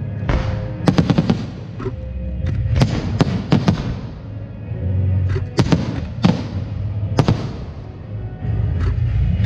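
Aerial fireworks bursting in a quick series of sharp bangs, several followed by crackling sparkle, over background music.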